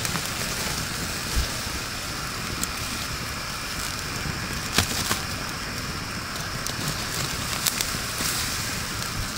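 Wood campfire and raked-over embers burning with a steady hiss, broken by a few sharp crackling pops.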